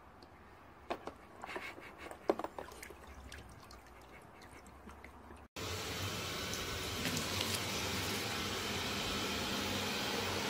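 A few faint clicks and splashes of water, then about halfway through a louder, steady whooshing of a robot vacuum cleaner running.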